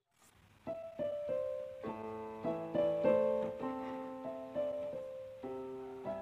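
Background piano music: single notes and chords struck in a steady flowing pattern, starting just under a second in after a brief silence.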